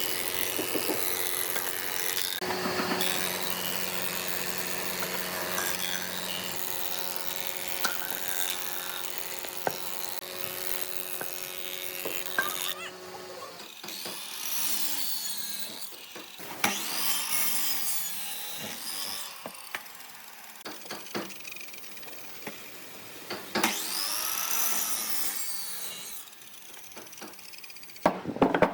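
Tools working wood: a power tool runs steadily against the wood for about the first thirteen seconds and then stops. Several separate rasping strokes on wood follow, with a few knocks near the end.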